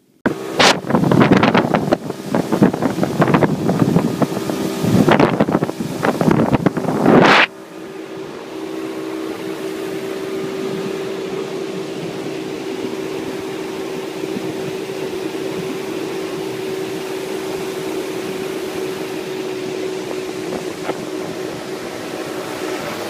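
Flats boat's outboard motor running at steady speed as the boat planes across calm water, a steady drone under wind and water hiss. Heavy wind buffets the microphone for about the first seven seconds.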